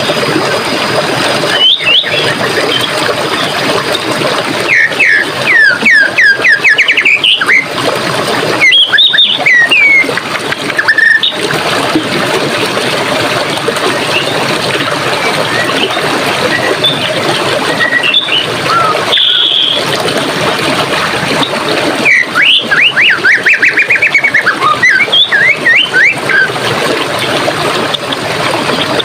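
Water running steadily, as a stream, with songbirds singing over it. The birds give fast runs of repeated notes about five seconds in, again around nine seconds, and longer near the end, with a few short whistles in between.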